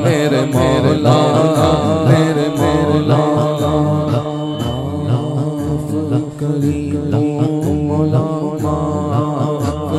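A man sings a naat solo into a microphone, his voice winding and ornamented, over a steady held drone underneath.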